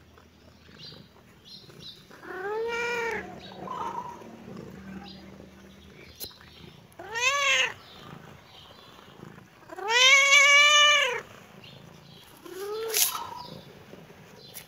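Young tabby-and-white cat meowing four times, each call rising and then falling in pitch; the third meow is the loudest and longest, lasting over a second.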